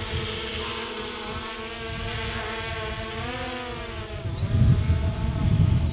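EXO Cinemaster 2 quadcopter drone in flight, its motors and propellers giving a steady buzzing whine that rises in pitch about three seconds in and dips just after. Gusts of wind rumble on the microphone over the last second and a half.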